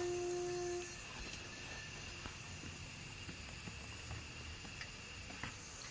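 Quiet camp-cooking sounds: a short steady hum in the first second, then a faint steady high tone over low hiss, with a few light clicks as utensils and a plate are handled.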